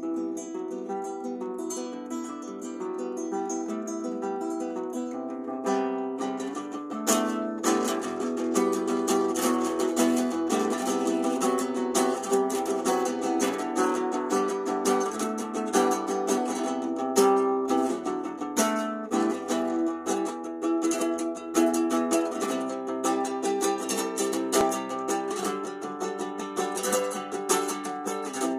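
Music played on plucked string instruments such as guitar. It starts lighter and grows fuller from about six seconds in, with bass notes and frequent quick plucks or strums.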